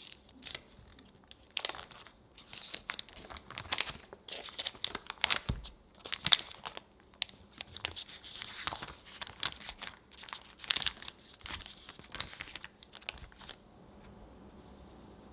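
Paper wrapper of a block of butter crinkling and rustling in irregular bursts as it is unfolded and peeled open by hand. The crinkling stops about a second before the end.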